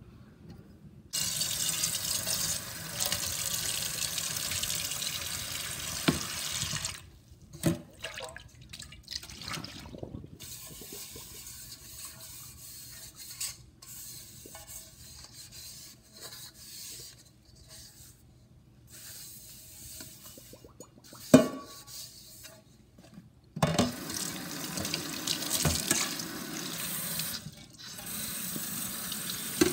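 Kitchen tap running into a stainless steel sink while a rice cooker's non-stick inner pot is rinsed and rubbed by hand. The water comes on about a second in and stops after several seconds. In between there are quieter handling sounds and knocks of the pot, one loud knock, and then the water runs again near the end.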